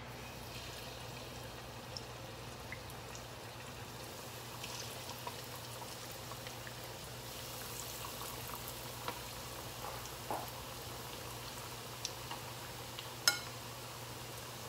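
Cornstarch-coated chicken wings deep-frying in hot oil in a wok: a steady faint sizzle scattered with small pops and crackles, and one sharp tap near the end.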